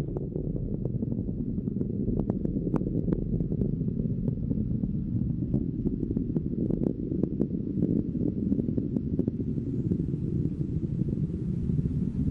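Falcon 9 rocket's first-stage engines heard during ascent: a steady low rumble with scattered faint crackles.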